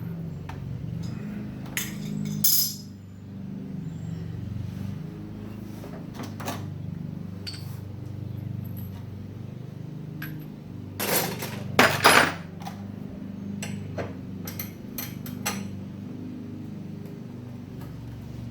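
Background music, a steady low chord bed that changes in steps, over scattered metallic clinks and clanks. The clanks come singly and in small groups, and the loudest cluster comes about two-thirds of the way through.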